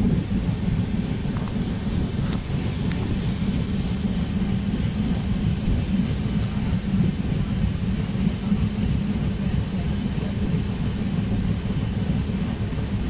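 Steady low rumble of a moving train heard from inside the carriage, mixed with wind and rain noise.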